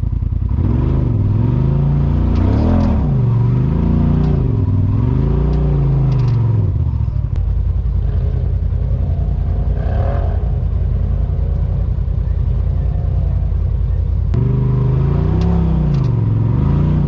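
Polaris RZR side-by-side's twin-cylinder engine revving up and down in repeated surges while crawling up a rocky climb. It runs steadier for a while in the middle, then surges again near the end.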